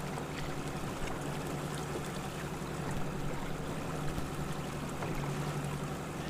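Fishing boat's motor running steadily at trolling speed, an even low hum, with water rushing along the hull.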